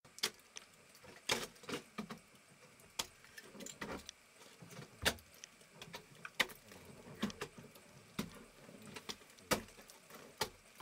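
Ice climbing tools and crampons striking the ice of a frozen waterfall: about a dozen sharp, irregular knocks, roughly one a second.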